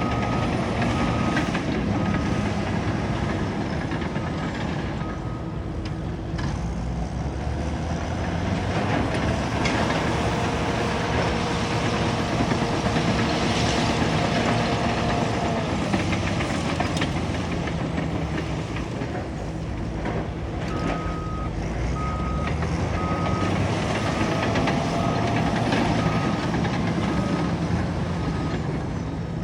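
Bulldozer's diesel engine running under load, with its reversing alarm beeping steadily for the first few seconds and again from about two-thirds of the way through.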